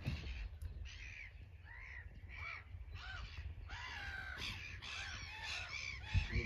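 Several birds calling repeatedly, short harsh arching calls overlapping one another. A low thump on the microphone comes near the end.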